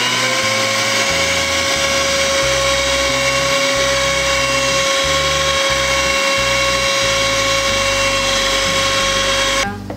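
Electric mixer running at a steady high speed with a constant whine, beating egg whites into creamed butter and sugar; it switches off abruptly just before the end.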